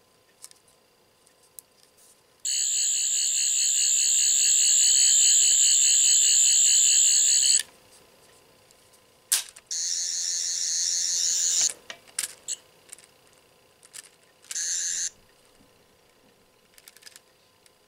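Toy sonic screwdriver sounding its warbling electronic buzz through a small speaker, three times: a long burst of about five seconds, a shorter one of about two seconds, then a brief half-second one. Light clicks from handling the toy come in between.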